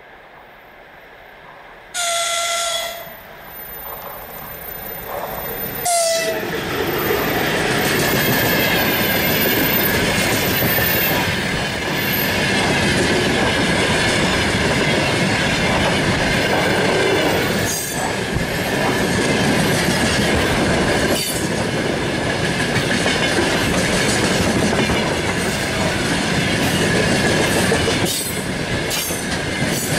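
The horn of a VL10U electric locomotive sounds twice: a blast of about a second about two seconds in, then a short one about four seconds later. Then a long freight train of gondola wagons passes close by, its wheels rumbling and clattering over the rail joints with a steady high wheel squeal and occasional sharp knocks.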